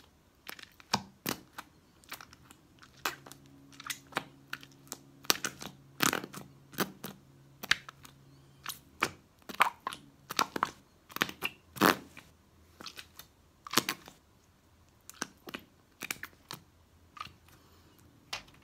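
Soft slime being pressed and squeezed with fingers into a small plastic container, giving irregular sticky clicks and pops as air is squeezed out.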